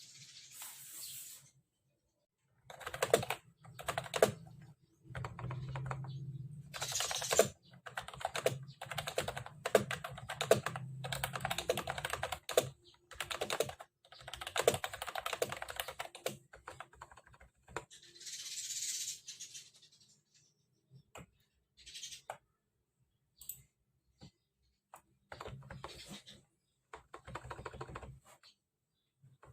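Typing on a Mofii Sweet keyboard: runs of quick key clicks with pauses between them, and a short soft hiss about two-thirds of the way through.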